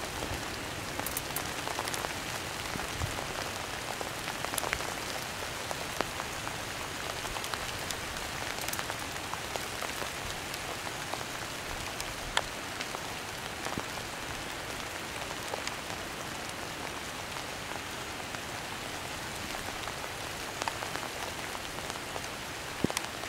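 Steady rain falling on dry leaves and brush, with scattered sharp drops landing close by.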